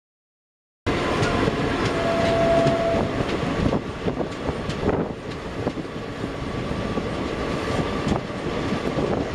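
Two passenger trains passing each other at speed on adjacent tracks, heard from an open door of one: a loud steady rumble of wheels and coaches with rapid clicks of wheels over rail joints. It starts abruptly about a second in.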